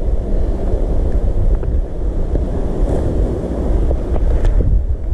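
Wind buffeting the microphone: a loud low rumble that swells and dips without a break.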